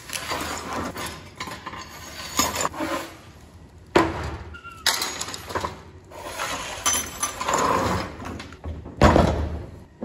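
Hand tools and small metal objects being shifted and cleared across a metal-topped workbench, clattering and scraping. Sharp knocks come about four seconds in and again near the end, the last as the heavy plough wheel is set down on the bench.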